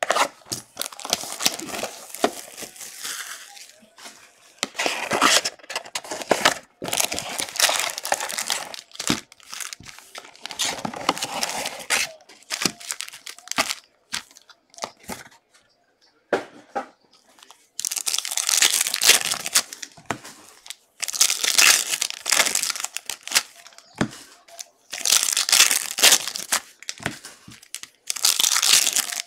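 Trading card pack wrappers from a 2022 Select football hobby box being torn open and crinkled by hand, in repeated bursts of rustling and tearing with short pauses between them.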